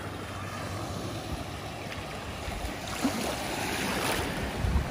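Gentle sea waves washing onto a shallow beach, swelling about three seconds in, with wind buffeting the microphone.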